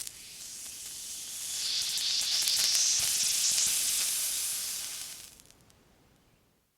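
Water sizzling: a high hiss that starts suddenly, swells over about two seconds, then dies away after about five seconds.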